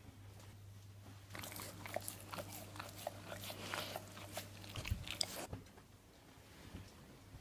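A dog licking, a quick run of wet smacking and lapping clicks for about four seconds. A steady low electrical hum runs underneath and stops with a soft thump near the end of the licking.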